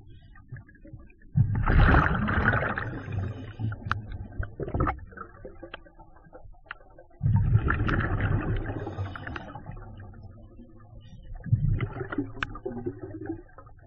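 Scuba diver breathing through an open-circuit regulator underwater. Three exhalations come about five seconds apart, each a loud rush of bubbles that starts sharply and fades over two to three seconds, with a few faint clicks between them.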